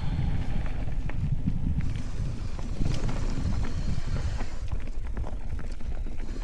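Riding a mountain bike down a dirt trail: wind buffeting the helmet-mounted microphone as a steady low rumble, with scattered light clicks and rattles from the bike over rough ground.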